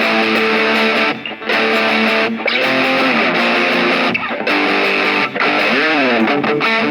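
Electric guitar played through a mini guitar amplifier with its overdrive on: distorted held chords and notes, with string bends about three and six seconds in, broken by a few short gaps.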